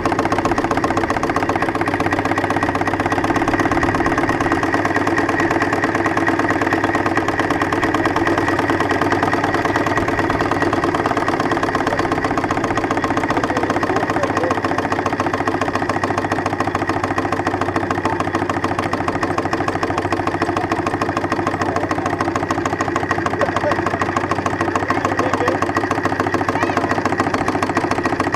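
Live-steam engine of a 3-inch scale Case traction engine running steadily as it drives along, with a fast, even mechanical beat.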